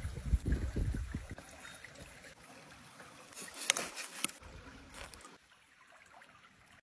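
A knife cutting through a crusty toasted bun on a wooden board, with a few crisp crunches a little past halfway, over the faint steady wash of a creek. Low thumps and rumble near the start.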